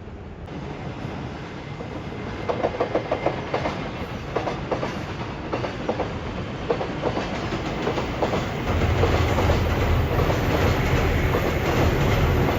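A train running on rails: runs of quick, regular clicks from the wheels over rail joints, with a deeper rumble building up about two-thirds of the way in.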